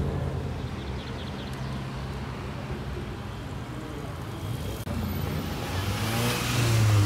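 Cars driving slowly past one after another, their engines humming low and steady. Near the end, a Mk6 VW Golf GTI passes close and its engine and exhaust swell to a deep steady drone with rushing tyre noise.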